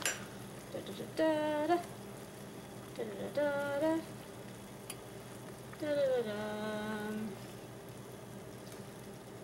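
A woman hums three short wordless phrases over the steady hiss of ramen simmering in a steel saucepan on an electric stove. A fork clinks sharply against the pot right at the start.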